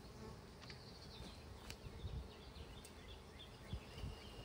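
Faint buzzing of honeybees flying around a freshly installed hive, over a low wind rumble, with a few light clicks.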